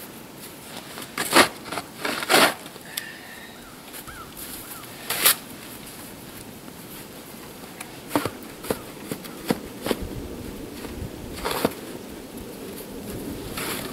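Snow shovel cutting into and scooping heavy snow: a series of separate crunching, scraping strokes, the strongest in the first five seconds and more spread through the rest.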